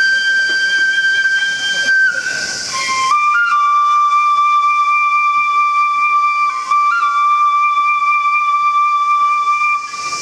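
Japanese bamboo flute (shinobue) holding long high notes with audible breath: one note until about two seconds in, a breathy gap, then a lower note held through most of the rest, with a brief flick up to a higher note about seven seconds in.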